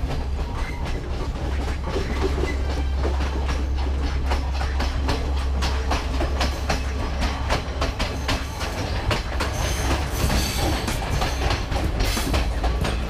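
Passenger train running along the track, its wheels clacking over the rail joints under a steady rumble and rush of air, heard from an open carriage doorway.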